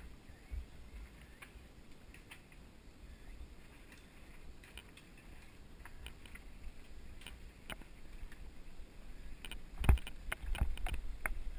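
Mountain bike rolling over a dirt and gravel forest road: a low rumble with scattered clicks and rattles from the bike, growing louder and busier near the end, with a sharp knock about ten seconds in.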